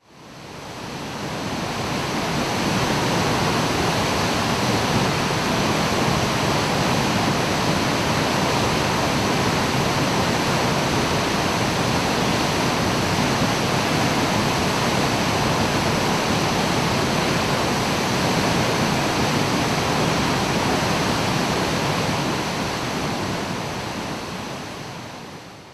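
Steady, unbroken rush of falling water from a 30 m straight-drop waterfall, fading in over the first couple of seconds and fading out at the end.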